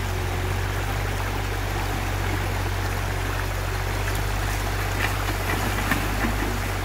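Muddy floodwater rushing over rocks in a creek, with a mini excavator's engine running steadily underneath. A few light knocks near the end.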